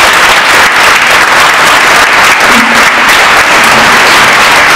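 Audience applauding: steady, loud clapping from many hands.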